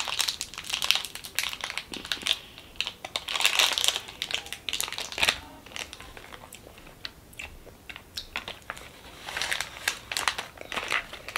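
Crinkly plastic wrappers of mini mochi crackling as they are peeled open by hand. The crinkling comes in bursts, thins out in the middle and picks up again near the end.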